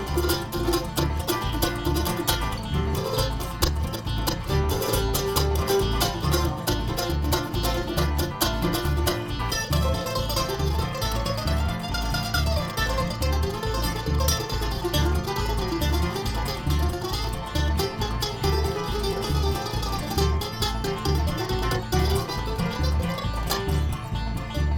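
Live bluegrass band playing an instrumental break: plucked string instruments taking the lead over a steady, even bass pulse.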